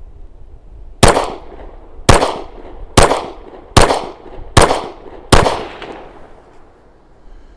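Glock 36 subcompact .45 ACP pistol fired six times, each report trailing off in a short echo; the shots come about a second apart and get a little quicker toward the end.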